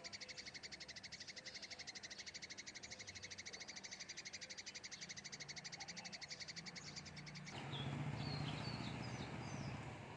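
A rapid, even pulsing trill, about a dozen pulses a second, runs until about three-quarters of the way through, then cuts off abruptly. After that comes a noisier outdoor background with a low hum and a few short bird chirps.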